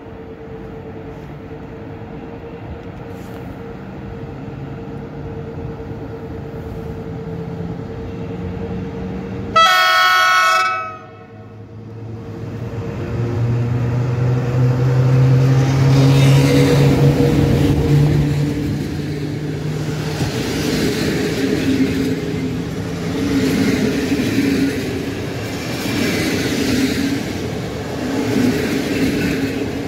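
EP09 electric locomotive approaching on an express passenger train, giving one short horn blast about ten seconds in. Then the locomotive runs past with a deep hum, followed by the rumble of the passenger coaches' wheels with a repeating clatter as their bogies pass over the rail joints.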